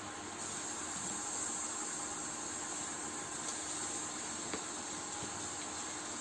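Steady hiss with a faint low hum, the hiss growing stronger about half a second in, and a couple of light knife taps on a plastic cutting board around the middle.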